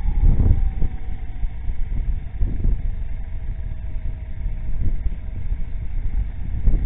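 Motorcycles on the move: a low, uneven engine-and-wind rumble on the microphone, with a faint whine that falls slowly in pitch.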